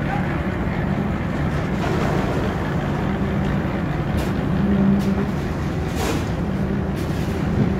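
Engine of a drum concrete mixer running steadily, with a few short knocks over it.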